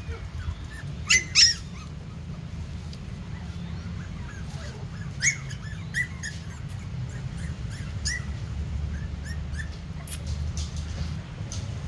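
Young puppies yipping and squealing as they play, in short, high-pitched cries with the two loudest about a second in and a few more later. A steady low rumble runs underneath.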